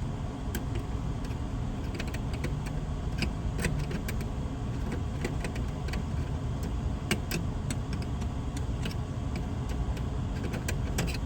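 Steady low hum of running HVAC equipment, with scattered light clicks and taps from parts and wiring being handled.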